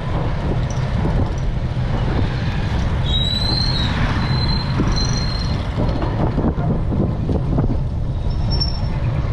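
Wind buffeting the microphone of a GoPro on a moving bicycle: a steady, loud low rumble. A few brief, thin, high whistling tones come through near the middle and again near the end.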